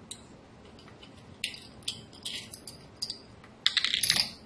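Soldering iron being pulled apart by hand: scattered small clicks and rattles of its handle parts, then a louder scraping rattle lasting about half a second near the end as the housing comes apart.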